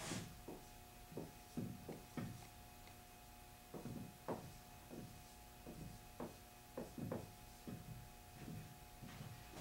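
Soft, irregular thumps and clicks of digital piano keys being played with the sound going to headphones, so only the key action is heard, over a faint steady tone.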